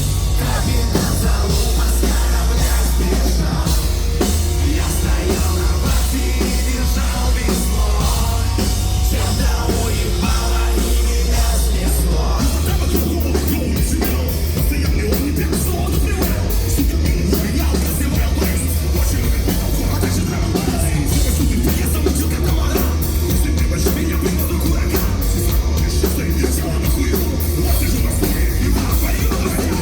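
Live heavy metal band playing loud and continuous: a dense wall of distorted rock music with heavy bass and driving drums and cymbals.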